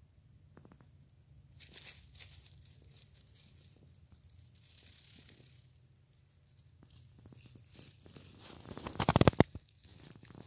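Wild baby rabbits moving about in dry straw bedding, with intermittent rustling and crackling. Near the end comes a loud scraping crackle as a rabbit's fur brushes against the microphone.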